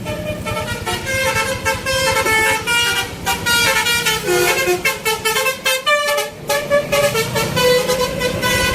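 Bus "telolet" multi-tone musical horn playing a quick melody, notes stepping up and down in rapid succession, over a low engine rumble.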